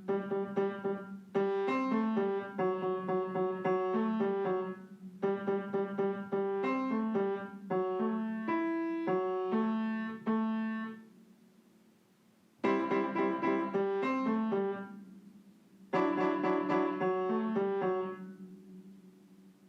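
Piano playing a simple tune in short phrases, with brief pauses between them.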